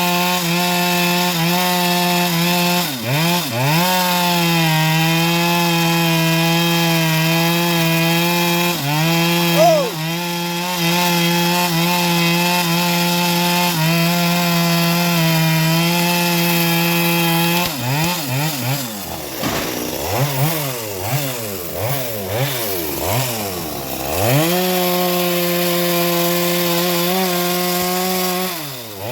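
Petrol saw engine on a homemade bandsaw rig running at high, steady speed while cutting through old teak wood, with short dips in speed. About halfway through the engine speed rises and falls repeatedly for several seconds, then it settles back to a steady high speed and drops off near the end.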